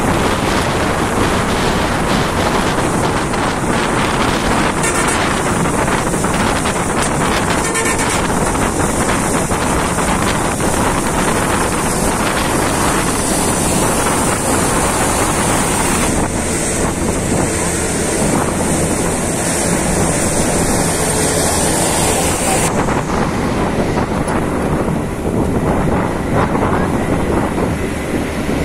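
Wind rushing over the microphone at an open bus window, mixed with the bus's road and engine noise at highway speed: a loud, steady rush, whose high hiss eases about 23 seconds in.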